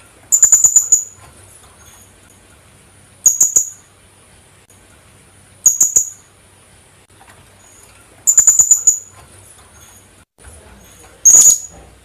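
Philippine hanging parrot (colasisi) calling. It gives five short bursts of rapid, shrill, very high-pitched notes, each burst lasting under a second, about every two and a half to three seconds.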